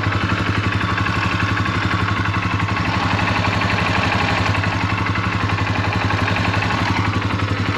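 Polaris ATV engine idling steadily with an even, rapid firing pulse, freshly reinstalled after a starter gear repair and running smoothly.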